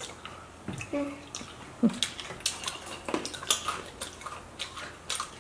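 Brittle dalgona sugar candy being snapped and handled on ceramic plates: a scattered run of small sharp clicks and cracks. A couple of brief voice sounds about one and two seconds in.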